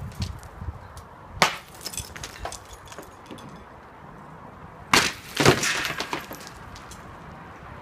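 Old plaster being broken off a reinforced-concrete band on a building wall. A sharp crack comes about a second and a half in, then a louder crashing break around five seconds in, with a second hit half a second later and a trail of small clattering pieces.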